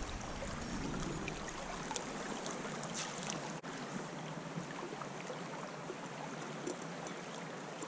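Creek water running steadily, an even rushing hiss, with a few faint ticks.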